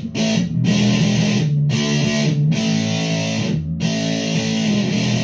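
Electric guitar chords from a Fender Player Telecaster with Seymour Duncan pickups, in the neck-middle pickup position, through a VOX AC10 amp with a Behringer SF300 Super Fuzz pedal. Full fuzzed chords are strummed and left ringing, changing every second or so with short breaks between them.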